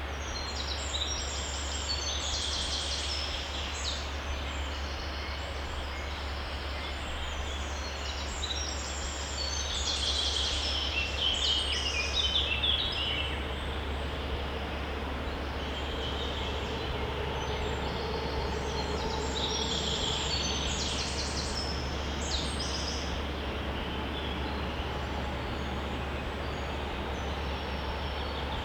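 Woodland stream running steadily, with a songbird singing short phrases of high notes every several seconds over it, and a steady low rumble underneath.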